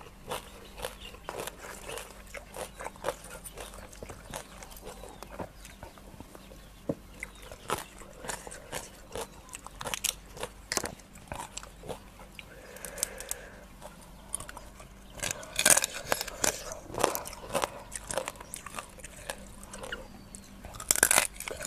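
Close-miked eating: crunching and chewing of raw rice-field crab and papaya salad, with many sharp cracks of crab shell. The crunches come thicker and louder about two-thirds of the way through and again near the end.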